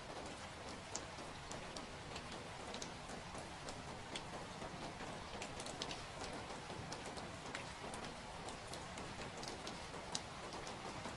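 Steady rain, with many irregular sharp drops or drips ticking over the constant hiss.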